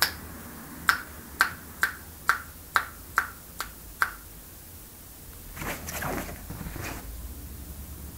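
A run of about nine sharp clicks or taps, roughly two a second, each ringing briefly, followed by a short soft scuffling noise.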